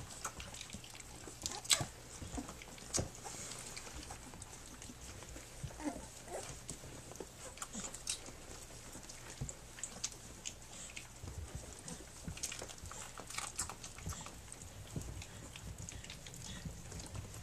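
Three-week-old Standard Schnauzer puppies nursing at their mother, with the mother licking them: scattered soft clicks and smacks of suckling and licking, with a few brief faint squeaks.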